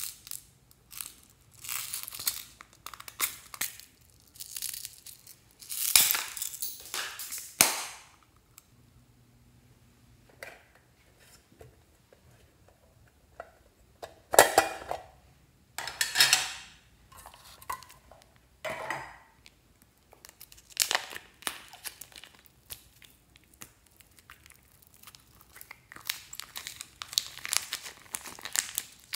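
Hands handling and opening small plastic and tin containers in separate short bursts of noise, then a plastic bag of beads crinkling as it is pulled open near the end.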